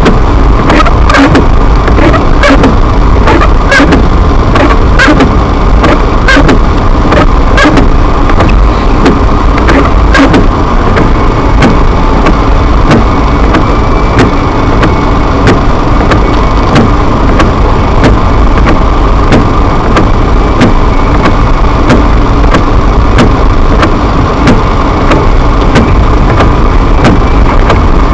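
Car driving on a snow-covered street, heard from inside the cabin: loud, steady road and engine noise, with sharp clicks or knocks coming thick and fast over the first ten seconds or so and more sparsely after.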